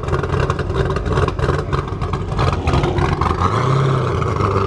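Engine of a white E39 BMW sedan running through its quad exhaust, pulsing unevenly at first and settling into a steadier tone near the end.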